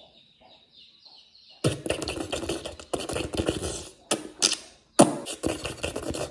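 Close-miked wet mouth sounds: lip-smacking and licking clicks in four bursts, starting about a second and a half in.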